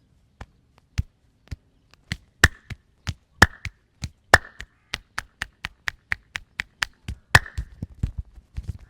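Hand slaps and chopping strokes of a fast massage on bare skin: sharp smacks about two a second at first, growing quicker, with a few louder ringing claps. Near the end they turn into a fast run of duller thumps.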